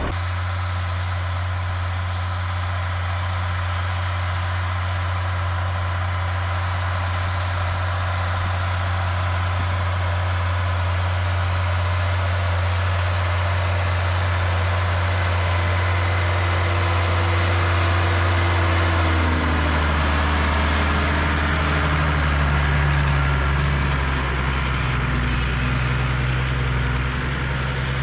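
Tractor engine running steadily during ploughing, a low, even drone. About two-thirds of the way through, its note drops slightly and changes.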